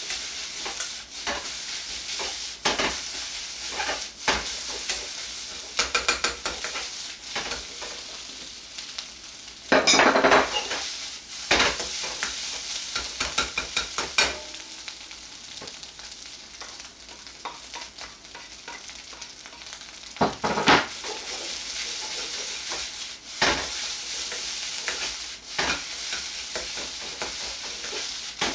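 Fried rice and egg sizzling in a wok while a metal ladle stirs and scrapes it, with quick clicks and knocks of the ladle against the pan. Now and then there is a louder stroke, the loudest about ten seconds in.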